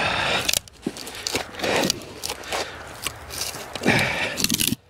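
Boots crunching on packed snow while split ash firewood is picked up and set down, with a few light knocks of wood on wood.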